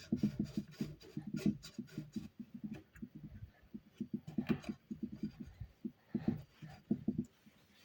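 A lemon being worked by hand for its juice: quick, uneven runs of short, soft strokes, several a second, with brief pauses.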